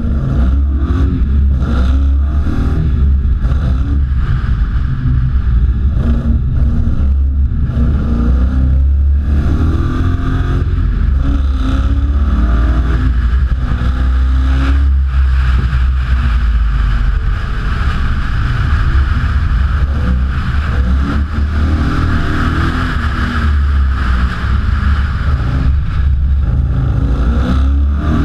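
Sprint car's engine heard through a camera mounted on the outside of the car, pulling hard on a timed run: the revs climb and drop again and again through the gear changes and corners, over a heavy steady low rumble.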